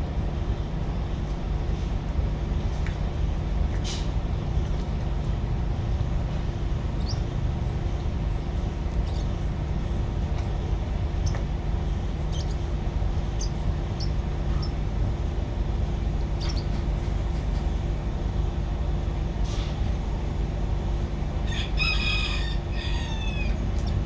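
Steady low drone of a marine engine with a constant hum running through it. Near the end a bird calls for about two seconds, several pitched notes that bend up and down.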